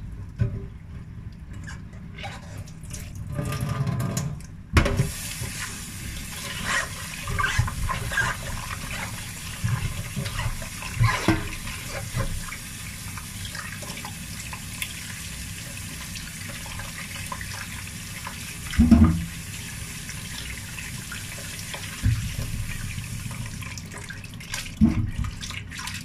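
Tap water running into a stainless steel bowl in a metal sink while hands rub and slosh soaked shiitake mushrooms in it, the tap coming on about five seconds in. Uneven splashes and knocks ride on the steady flow, the loudest a low thump a little after halfway.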